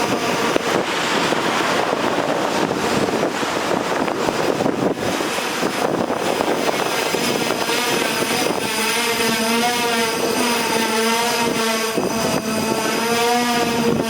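Electric commuter train running into a station, with a loud rushing rumble. From about two-thirds of the way in, a wavering multi-tone whine rises over the rumble as the train slows.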